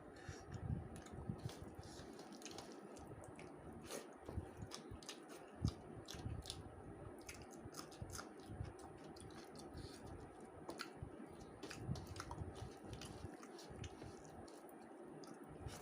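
A person chewing rice and fish curry: soft wet squishing and mouth sounds with many small irregular clicks.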